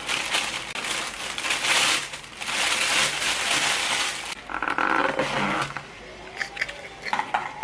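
Thin plastic carrier bag rustling and crinkling as it is untied and pulled open around a takeout container. About four and a half seconds in, the container's clear plastic lid squeaks and clicks as it is pried off.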